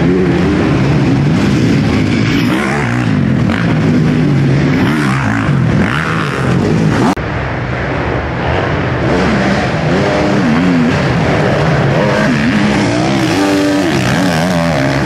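Several motocross bike engines racing, revving hard and falling back over and over as riders accelerate, jump and corner on the dirt track. The sound breaks off abruptly about seven seconds in and picks up again at once.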